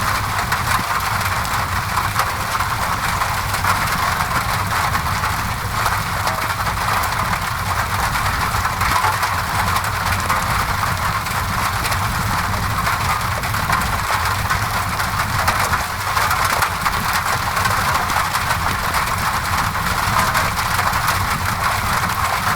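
Steady rain on a window mixed with a crackling fireplace: an even hiss over a low rumble, sprinkled with many small crackles.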